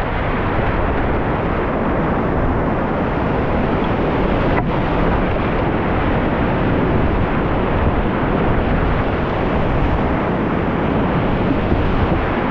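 Steady, loud rush of whitewater rapids.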